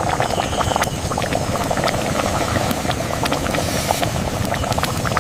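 Curry simmering in a pot: a steady bubbling hiss with many small pops.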